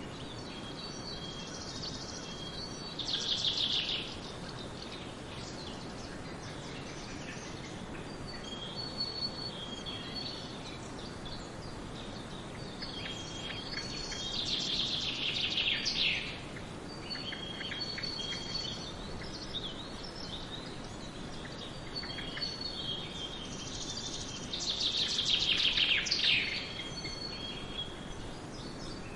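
Forest birds singing: one bird repeats a loud, falling trilled song about every ten seconds, three times, while others give short high whistled notes in between, over a steady background hiss.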